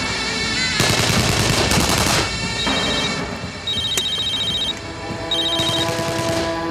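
Bursts of automatic gunfire, about a second in and again near the end. From about two and a half seconds in, a mobile phone rings with a repeating electronic beeping ringtone, over background music.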